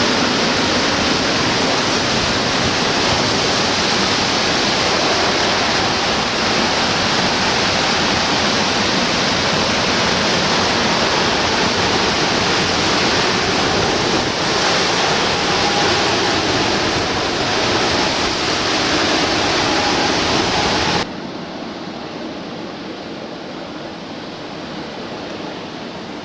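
Hurricane wind: a loud, steady rushing noise that drops abruptly to a softer rush about 21 seconds in.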